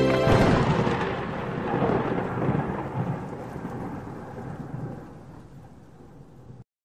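Thunder: a sudden clap followed by a long rolling fade over about six seconds, cut off abruptly near the end.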